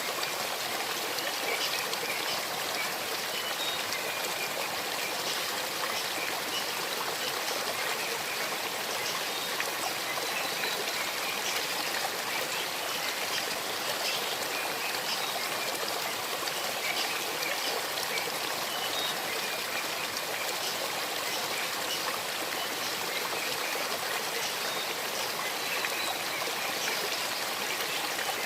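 Small forest stream babbling steadily as water runs over stones, a constant trickling rush.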